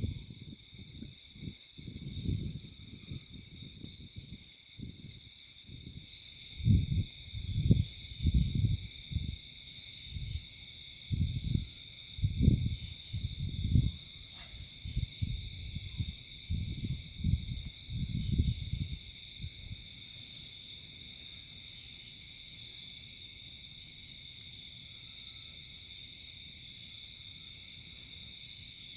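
A steady, high chorus of insects. Irregular low rumbles come and go over it for the first two-thirds, then stop, leaving only the chorus.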